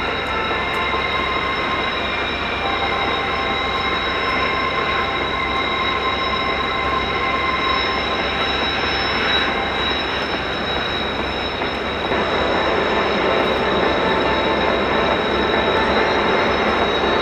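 Kawasaki T-4 jet trainers' turbofan engines whining steadily, several high tones over a rushing noise, growing a little louder about twelve seconds in.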